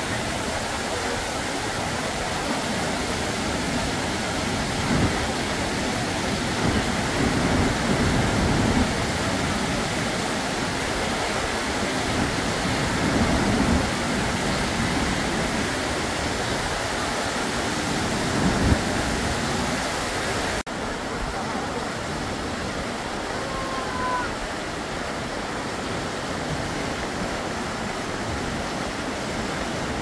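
Whitewater rapids of the creek below Yosemite Falls rushing over boulders: a loud, steady roar of water, slightly quieter after a cut about 21 seconds in.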